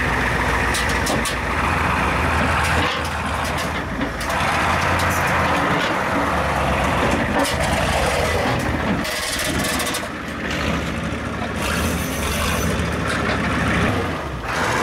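Diesel truck engine running steadily at a low idle, with a few short knocks scattered through.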